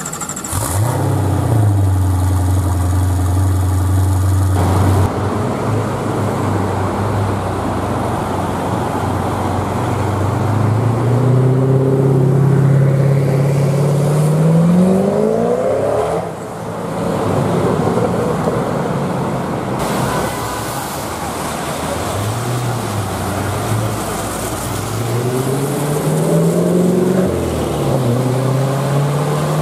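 Koenigsegg Agera twin-turbo V8 engines: a low steady idle for the first few seconds, then the engine note climbs in long rising pulls as the cars accelerate away, falling and climbing again several times.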